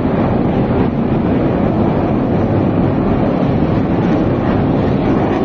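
Aircraft flying overhead: a loud, steady, low roar.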